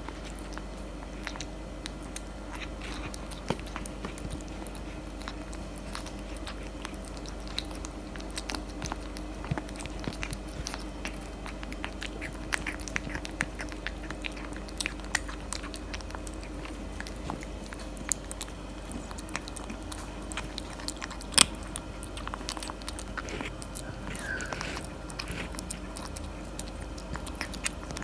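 Tabby cat eating a plate of dry kibble and wet chicken-and-tuna cat food: steady close-up chewing with irregular sharp crunching clicks, one noticeably louder about three-quarters of the way through.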